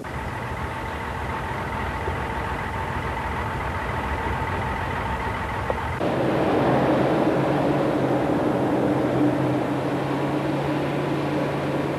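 Motor vehicle engine running steadily; about halfway through the sound changes abruptly and grows louder, with a lower hum.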